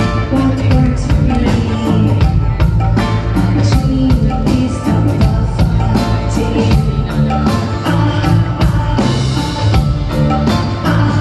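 Live rock band playing through the PA, heard from the audience: a steady drum-kit beat under electric guitar and keyboard, with a woman singing.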